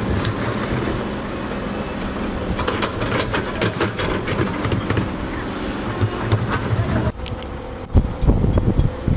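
Caterpillar excavator working, its engine running under repeated metallic clanking and rattling. After a sudden change about seven seconds in, a lower machinery rumble with wind buffeting the microphone.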